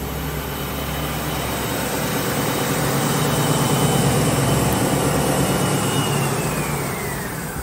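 OTT EU 110 WS wide belt sander running, its 11 kW main motor and belts giving a steady machine noise with a high whine. About six seconds in the whine starts falling steadily in pitch as the machine spins down after being switched off.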